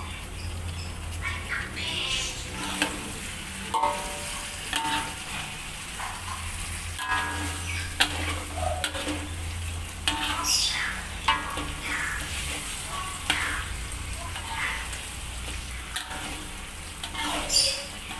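A metal spatula stirs and scrapes chicken pieces through spice paste frying in oil in an aluminium wok, over a steady sizzle. Repeated scrapes and clinks run throughout, with a short squeak near the end.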